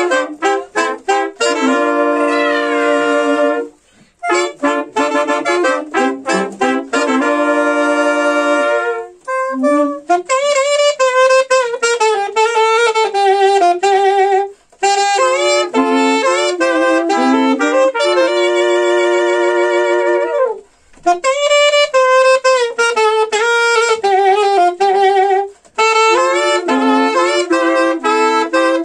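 A horn quartet of three saxophones and a trumpet playing a reggae melody with no backing, in phrases broken by short pauses for breath.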